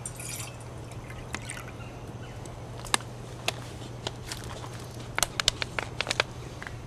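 Water poured from a plastic bottle into a stainless steel cup, a short trickle right at the start, followed by scattered sharp clicks and ticks, several in quick succession a little after five seconds in, over a low steady hum.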